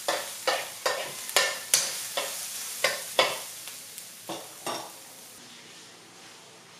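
Food frying in hot oil in a pan while being stirred, with a short burst of sizzle at each stroke of the spatula, about two a second. The strokes weaken and stop after about five seconds, leaving a faint sizzle.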